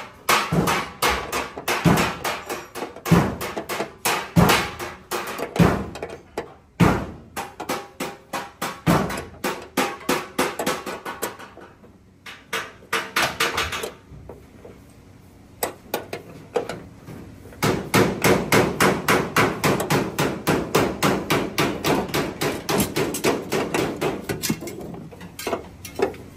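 Hand hammer striking car body sheet metal, panel beating dented bodywork. Repeated sharp blows come a couple of times a second, ease off for a few seconds near the middle, then pick up as a faster, steady run of strikes.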